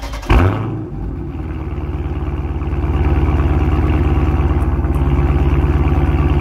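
Car engine heard at the exhaust tip: it starts with a sudden loud burst about half a second in, then runs steadily with an even, low exhaust note that grows a little louder and holds.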